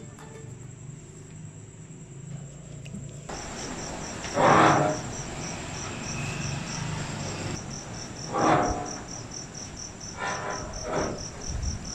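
Crickets chirping in a fast, even pulse over a constant high insect trill, joined about three seconds in. Three brief rustles of jacket fabric being handled cut across it, the loudest about four and a half seconds in.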